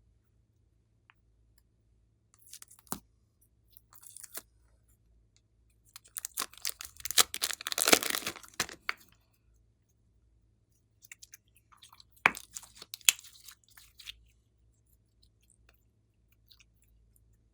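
Slime being pressed and pulled by hand, crackling and popping in short bursts, the longest and loudest about halfway through.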